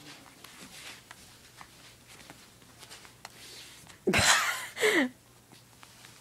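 Dachshund mouthing and tugging at a plush toy to get a treat out of it, with faint soft rustles and small clicks. About four seconds in come two short loud vocal sounds, each falling in pitch.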